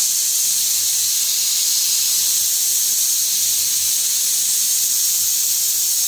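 Pressure cooker letting off steam through its whistle: a loud, steady, high hiss that starts suddenly.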